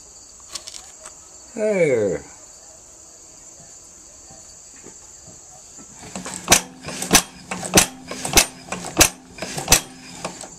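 Farmall F20 engine turned over slowly by hand crank, giving a run of about six sharp clicks roughly every 0.6 s from about six seconds in: the magneto's impulse coupling snapping. A short falling squeak comes about two seconds in, over the steady chirring of crickets.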